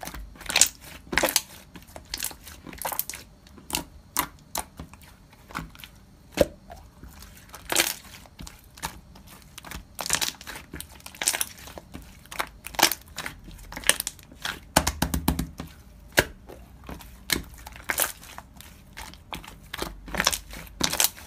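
Slime being pressed and worked by hand, giving off irregular sticky pops and crackles, a few each second.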